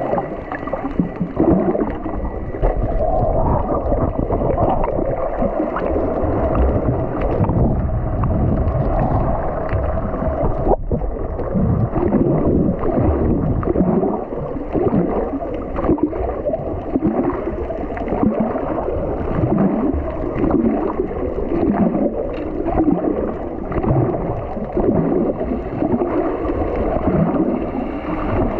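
Muffled water gurgling and churning heard by a camera underwater, a continuous dense rush with a wavering low swell every second or so.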